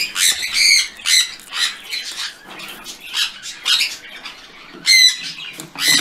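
Sun conures squawking: a run of short, high-pitched calls in the first two seconds, fainter calls after, and one loud, harsh call about five seconds in.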